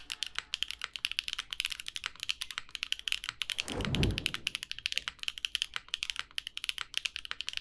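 Fast typing on a Neo80 mechanical keyboard in its O-ring mount, with lubed Gateron Azure Dragon switches under GMK keycaps on an aluminium plate: a quick, continuous run of crisp keystrokes. A brief low thud comes about four seconds in.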